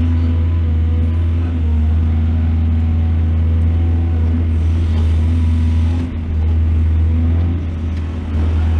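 Heavy diesel engine of a mining excavator running with a steady, deep hum, dipping briefly about six seconds in and again near the end.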